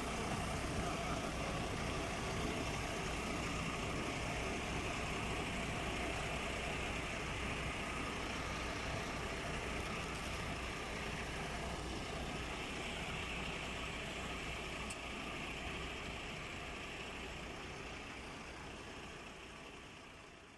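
MAN TGA 32.400 tipper truck's diesel engine idling steadily, under a steady hiss; the sound fades slowly near the end.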